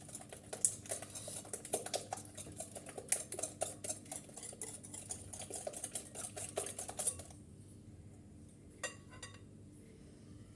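Hand whisk beating eggs and sugar in a bowl, its wires clicking quickly and unevenly against the bowl. The whisking stops about seven seconds in, followed by a few brief clicks.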